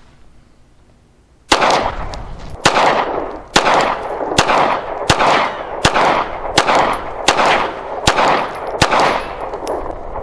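Glock 45 9mm pistol firing ten shots of Federal Syntech 130-grain ammunition in steady succession, about one shot every 0.8 seconds, starting about a second and a half in. Each report rings on briefly.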